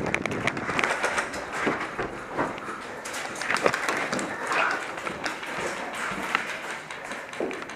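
A player moving on foot: footsteps on dirt with rustling gear, broken by scattered sharp clicks and knocks at irregular intervals.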